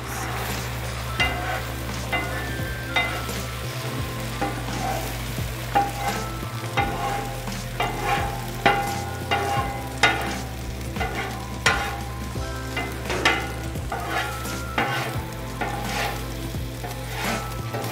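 Metal spatula chopping and scraping scrambled eggs on the steel cooktop of a Camp Chef FTG600 flat-top griddle: repeated sharp, ringing clanks and scrapes, about one or two a second, over a steady sizzle of frying.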